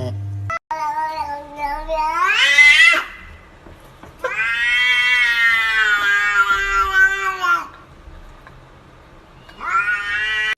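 Domestic cat meowing loudly three times: a call that rises in pitch at its end, then a long drawn-out meow of about three and a half seconds, then a short meow near the end.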